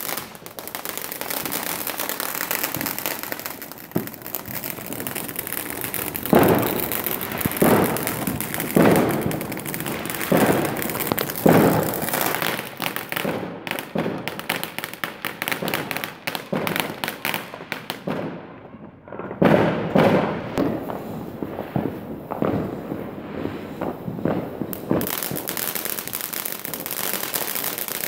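Fireworks going off at ground level: a dense, rapid crackle of sparks with a run of louder bangs about a second apart, a short lull about two-thirds of the way through, then more bangs.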